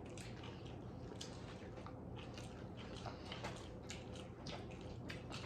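Faint eating sounds: chewing and biting food, with small irregular mouth clicks and crackles.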